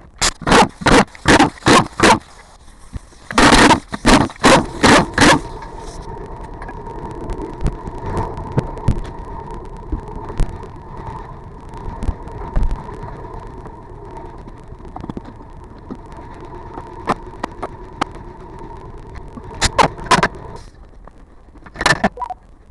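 Hyundai Grandeur HG: two quick runs of loud knocks at about three a second, then a steady running hum with a faint whine and scattered clicks, and a few more knocks near the end. These are the front and rear noises the owner is recording.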